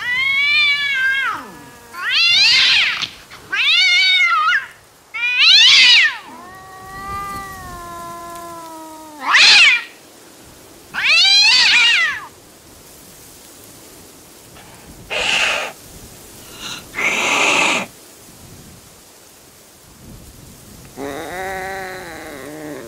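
Angry cat yowling: a run of loud drawn-out calls that rise and fall in pitch, one of them a long lower moan. Two short hisses follow about 15 and 17 seconds in, then one more lower yowl near the end.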